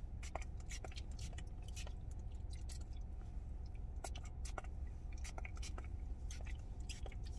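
Scattered short clicks and light rustles at an irregular pace, over the steady low hum of a car engine idling.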